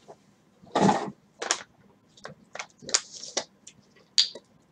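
Typing on a computer keyboard: a run of uneven key clicks, with a short rustle about a second in.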